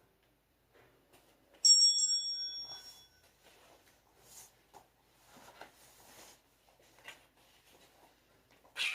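A single strike of a small timer bell, ringing with several high tones and fading over about a second and a half: the signal to change stretches. Faint rustling follows, with a brief louder rustle near the end.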